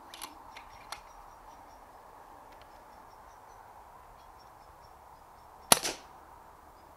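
A single shot from a Brocock Concept XR pre-charged pneumatic air rifle taken at a rat: one sharp crack followed at once by a quieter knock. A few faint clicks come in the first second.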